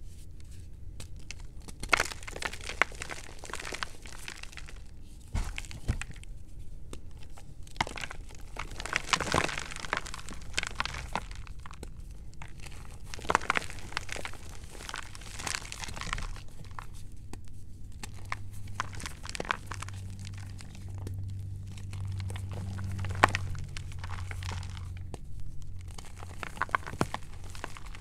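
Hands crushing and crumbling chunks of gym chalk: continuous irregular dry crunching and crackling, with occasional sharper snaps as pieces break apart.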